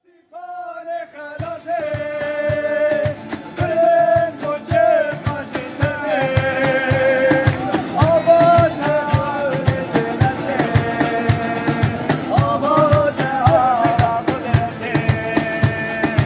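Live street music: singing over two strummed acoustic guitars, with a cajón beating a steady rhythm that comes in about a second and a half in.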